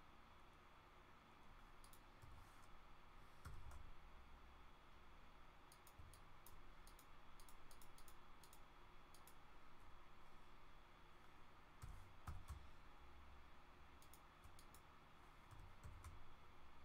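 Faint clicking of a computer mouse and keyboard keys, in scattered runs of quick clicks, with a few soft low thumps, the loudest about twelve seconds in.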